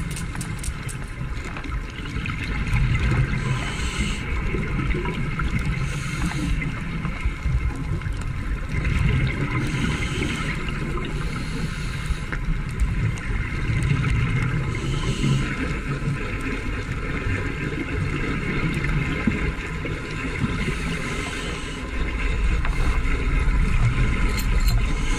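Underwater sound picked up by the camera: a steady low rumble of moving water with a burst of bubbling hiss every few seconds.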